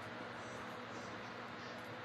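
Steady room hiss with a faint low hum, and faint mouth sounds of chewing food.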